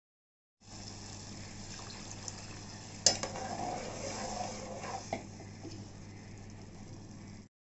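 Kitchen sounds from an aluminium pot of urad dal cooking: a sharp metal clink about three seconds in, then a couple of seconds of liquid and stirring noise, and a smaller clink about five seconds in. A steady low hum runs underneath.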